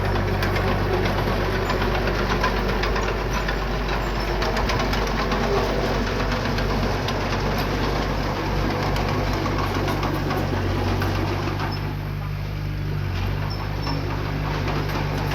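Diesel engine of a small bulldozer or dump truck running steadily under load, with dense mechanical clatter over the engine note. The engine pitch shifts slightly about eleven seconds in.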